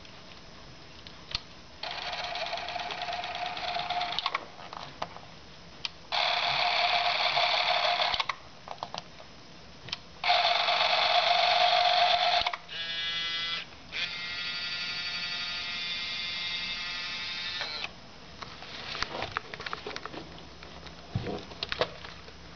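Canon 814XL-S Super 8 movie camera's motor running in five short bursts of one to four seconds, with small clicks between them. The third burst is the loudest, and the last two carry a more pitched, even whir.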